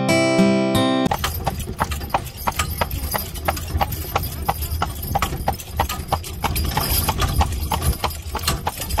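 About a second of acoustic guitar music cuts off, then a carriage horse's hooves clip-clop steadily on a paved road, several strikes a second, over a low steady rumble.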